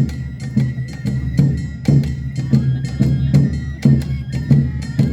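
Awa Odori festival music played live: taiko drums and sharp metallic hand-bell strikes keeping a steady beat about twice a second, over a held high note.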